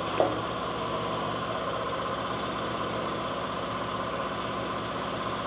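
Steady hum of a running motor, with a short knock just after the start.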